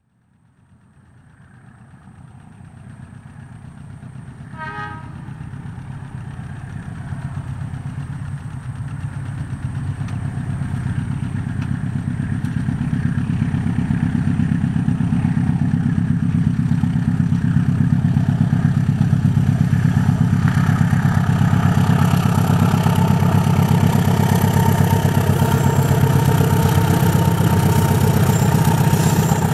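Diesel-electric locomotive of class CC 201 running under power as it hauls a passenger train, growing louder as it approaches over the first fifteen seconds or so and then holding steady. A brief horn note sounds about five seconds in.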